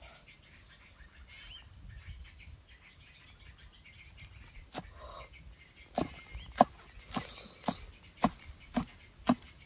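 Steel cleaver chopping chillies on a round wooden chopping block: sharp knocks about two a second, starting about five seconds in. Birds chirp faintly before the chopping starts.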